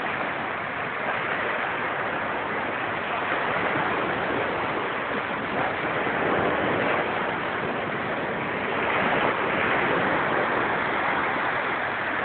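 Surf washing onto a sandy beach: a steady rushing hiss that swells a little every few seconds as the waves break.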